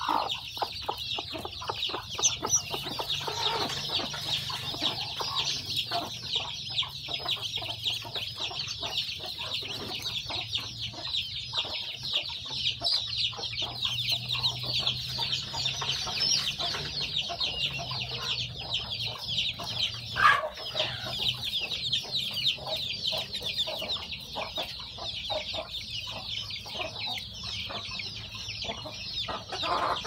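A brood of newly hatched chicks peeping nonstop, a dense chorus of many rapid, high, falling peeps overlapping one another.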